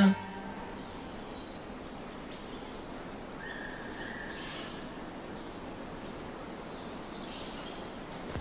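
Steady outdoor nature ambience: a low, even hiss with scattered bird calls. These include one short held whistle about three and a half seconds in and a few quick high chirps around the middle.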